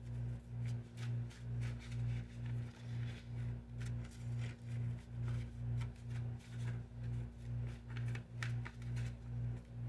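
Background music: a low droning tone that swells and fades about twice a second, over a fainter steady hum. Faint light clicks come and go, most clearly in the last couple of seconds.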